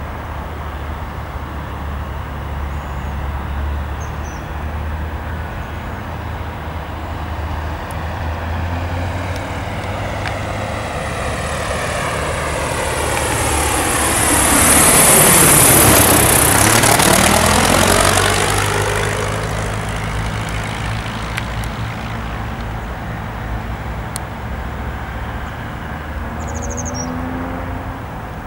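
Piper PA-28-181 Archer II's four-cylinder Lycoming engine and propeller flying a low pass. The drone builds, peaks about halfway through with a sweeping change in tone as the plane goes by, then fades away.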